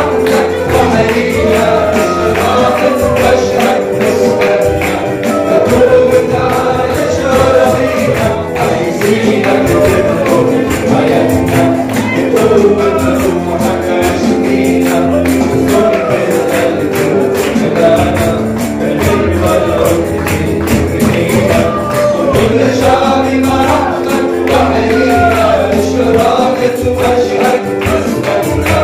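Gospel worship music: a congregation and worship leaders singing together over a steadily shaken tambourine.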